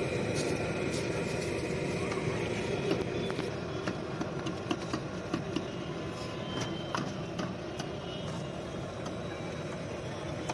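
Busy street-stall background of traffic hum and indistinct voices, with sharp clinks of a steel ladle against a steel pot and bowls as ragda is served, mostly in the middle of the stretch.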